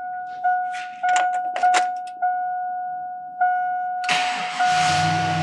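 A 2002 Chevy Silverado starting: a warning chime dings repeatedly with a few clicks, then about four seconds in the engine cranks briefly, catches and settles into a steady idle. The engine bay has just been pressure-washed.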